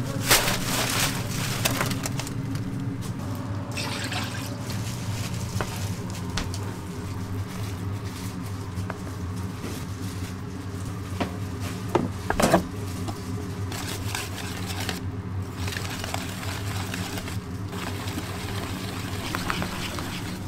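Batter being made in a large steel bowl: liquid poured onto the dry mix and stirred with a wire whisk, over a steady machine hum, with a few sharp clatters near the start and about twelve seconds in.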